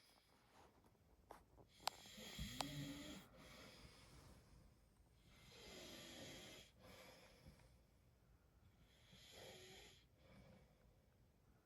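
A man snoring faintly, one slow snoring breath every three to four seconds. About two seconds in come a few sharp clicks and a short, louder pitched snore.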